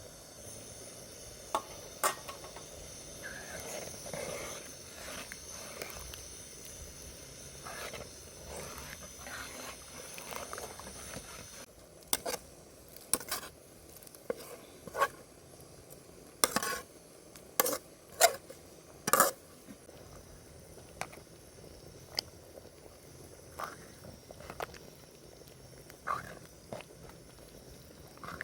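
Dishes and cutlery clinking and knocking in a run of sharp separate strikes, densest in the middle. Under the first part runs a steady high chirring of crickets, which stops abruptly about twelve seconds in.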